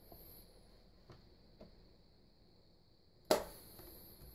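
Faint plastic ticks as the front blade cap of a Bostitch QuietSharp Glow electric pencil sharpener is twisted by hand, then one sharp loud click about three seconds in as the cap snaps in its housing.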